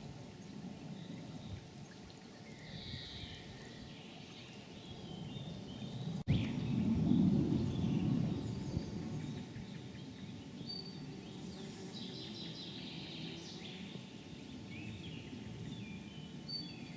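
Small birds chirping and singing in short scattered calls over a steady low rushing background, which swells for a few seconds after a sharp click about six seconds in.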